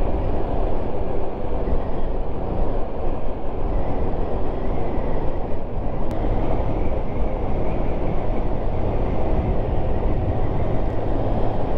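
Honda Wave 110 motorcycle under way at road speed: its small single-cylinder four-stroke engine running steadily, mixed with a constant rush of wind and road noise.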